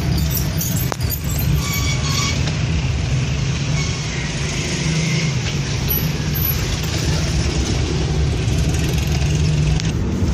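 Steady low rumble of a car's engine and tyres heard from inside the moving vehicle, with faint traffic noise outside.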